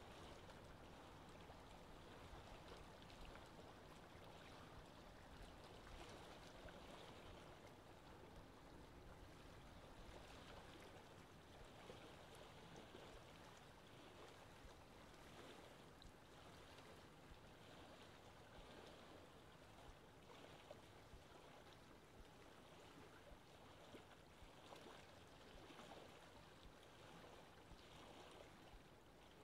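Faint, steady wash of sea water, with a small, uneven splashy texture and no distinct events.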